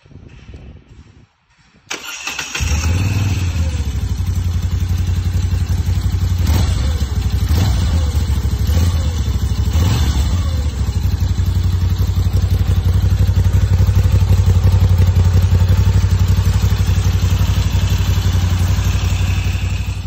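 Moto Guzzi V-twin motorcycle engine starting about two seconds in, then running at a steady idle with a deep beat, blipped on the throttle a few times in the middle.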